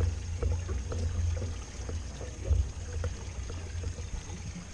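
Water trickling and splashing around a boat over a steady low rumble, with scattered small knocks.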